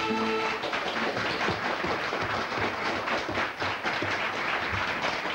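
An accordion's final held chord ends about half a second in, and the audience breaks into applause.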